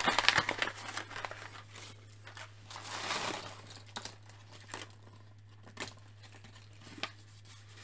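Packaging crinkling and rustling as a thin plastic bag of small toy parts is handled and opened, with a few light clicks.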